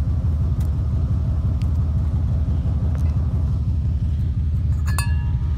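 Vehicle driving, a steady low rumble of engine and road noise, with a brief metallic clink about five seconds in.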